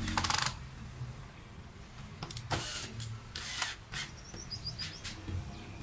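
Cordless drill-driver working into a wooden strip laid over an MDF board, running in short bursts: a loud one at the start with rapid clicking, then shorter ones about two to four seconds in. Faint bird chirps near the end.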